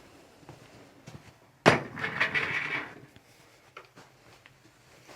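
A sudden sharp clunk on a chiropractic treatment table, followed by about a second of crinkly rustling from the patient and the table paper moving.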